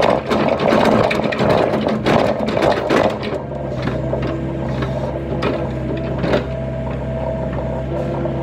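Excavator bucket dumping a load of dug material into a steel dump-truck bed, a dense clatter of stones for about three seconds. Then only the excavator's diesel engine running steadily with a faint hydraulic whine and a few clicks as the machine swings back.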